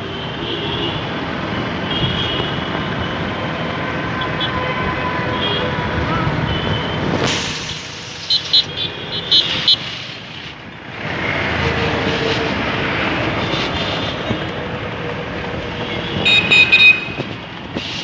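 Street traffic: vehicle engines and road noise, with a vehicle horn sounding a run of short beeps about eight seconds in and again near the end.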